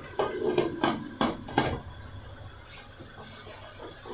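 Aluminium pressure cooker lid being fitted onto the pot: four or five metal clanks and scrapes in the first two seconds. A faint steady high-pitched tone comes in about three seconds in.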